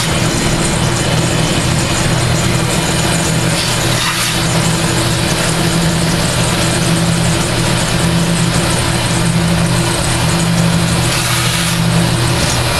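JMD-15 mill/drill, retrofitted to CNC, slotting a cast-iron brake rotor with an end mill: a steady motor hum with a constant hiss of the cut over it.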